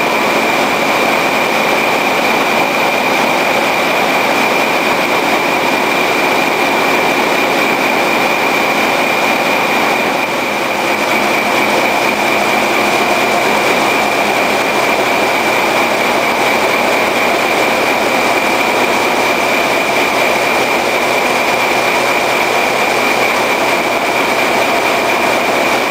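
Wärtsilä 46 V-type medium-speed marine diesel engines running: a loud, steady mechanical din with a constant high whine over it.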